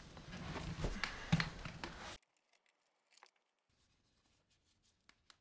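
Small scraping and handling noises as a screwdriver works the cover plate of a wall outlet. About two seconds in the sound cuts to near silence, with only a few faint clicks after that.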